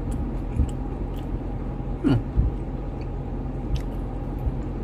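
A person chewing and tasting food, with small wet mouth clicks and a short falling hum of the voice about two seconds in, over a steady low drone.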